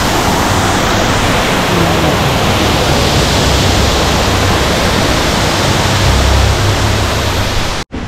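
Waterfall rushing as a loud, steady roar with a deep rumble underneath. It cuts off abruptly just before the end.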